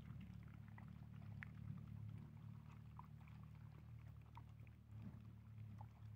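Several dogs eating from the ground, heard as faint scattered chewing and crunching clicks over a steady low rumble.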